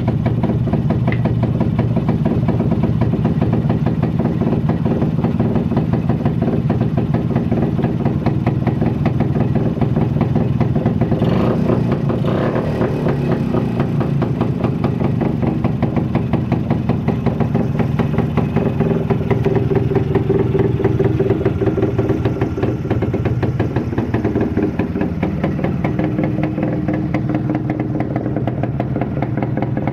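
Yezdi CL motorcycle's two-stroke single-cylinder engine running steadily at idle after restoration, with a brief change in revs around the middle.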